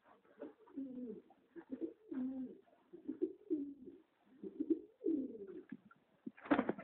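Domestic pigeons cooing, a steady string of low, wavering coos about one a second, with a brief louder, noisier burst near the end.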